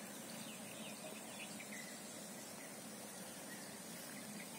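Faint field ambience: a steady high drone of insects, with a few short bird chirps in the first second or two.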